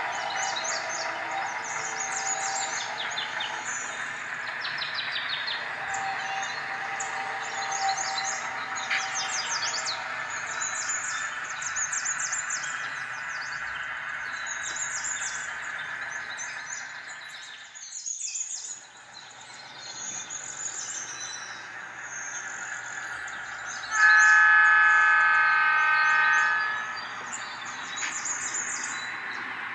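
Diesel locomotive sound for a model Plymouth switcher: the engine runs steadily with birds chirping over it, fading away briefly about 18 seconds in. About 24 seconds in comes one loud horn blast of several notes at once, lasting nearly three seconds.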